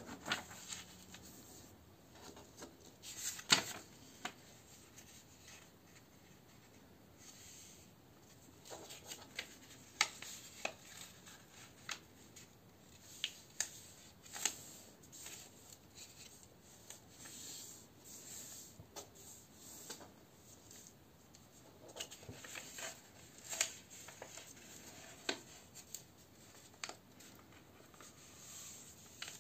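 A sheet of A4 paper being folded by hand into a paper plane: soft rubbing and rustling as the sheet is handled, with irregular sharp crackles as the folds are pressed and creased flat, the loudest about three and a half seconds in.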